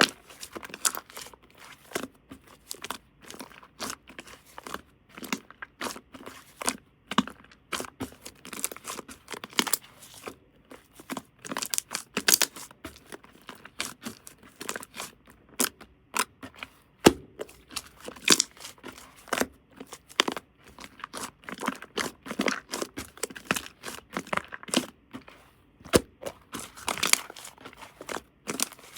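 Close-up handling of paper: irregular tearing, crinkling and rustling with small crackles and taps.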